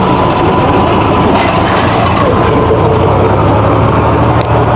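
Farm tractor engine running steadily and loud, close to the microphone.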